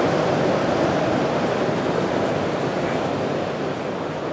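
Steady background noise with no distinct events, getting a little quieter near the end.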